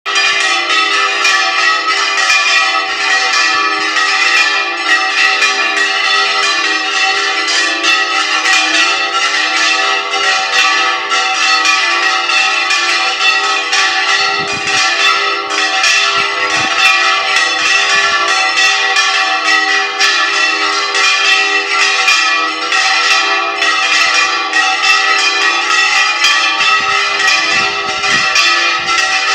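Five church bells ringing together in a fast, continuous peal, their strikes overlapping so that the tones ring on into one another without a break.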